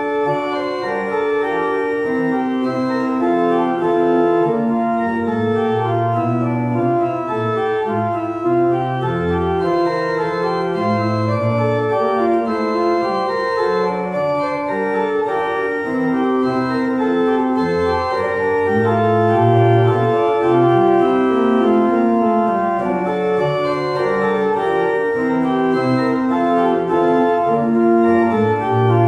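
Organ playing the postlude after the benediction: sustained full chords over a moving bass line.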